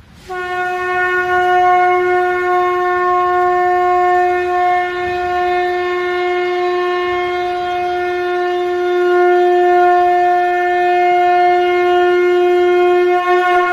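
Conch shell (shankha) blown in one long, steady, loud note.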